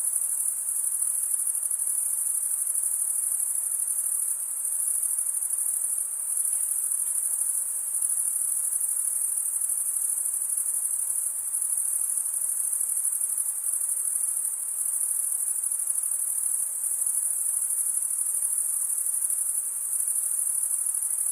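Crickets chirping in a dense, steady high-pitched chorus, with a faint low hiss of night ambience beneath.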